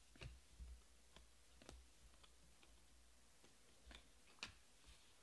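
Faint, irregular clicks and light taps of glossy Panini Prizm baseball cards being flicked through by hand and set down on stacks, the sharpest tap about four and a half seconds in.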